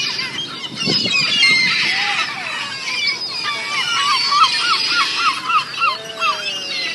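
A flock of birds crowding in to be fed, many calling over each other. Around the middle there is a quick run of about ten repeated calls.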